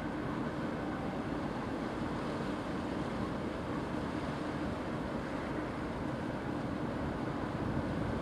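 Distant freight train of container wagons rolling past, a steady, even rumble of wheels on the rails.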